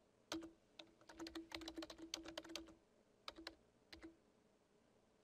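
Typing on a computer keyboard: a single keystroke, then a quick run of keys, then a few more keystrokes a little later before it goes quiet.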